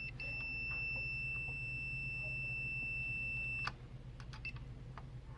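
Digital multimeter's continuity beeper sounding one steady high beep for about three and a half seconds, broken briefly as it starts, while the probes sit across a power-supply diode. A continuous beep means the diode reads as shorted. A short chirp follows as the probes move, over a low steady hum.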